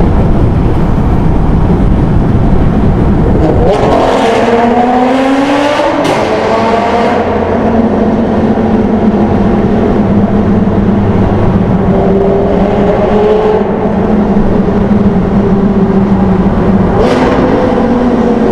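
Lamborghini Gallardo V10 with a hybrid Capristo and IPE aftermarket exhaust accelerating hard in a road tunnel: the engine note climbs for a few seconds with sharp cracks, breaks at a gear change, then settles into a steady loud drone, with another crack and rise near the end.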